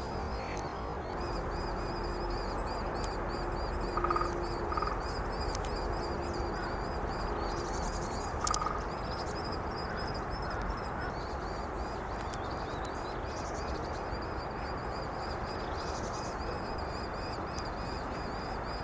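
Outdoor ambience: a steady rushing noise with a faint high chirping repeated several times a second throughout.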